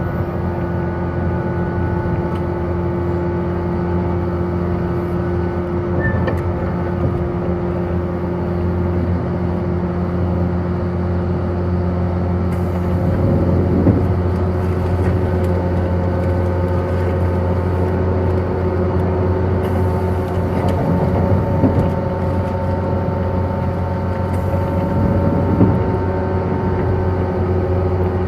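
Running noise of a JR 185 series electric train heard from inside the car at a steady speed: a constant drone with steady hums, and a few faint knocks from the track.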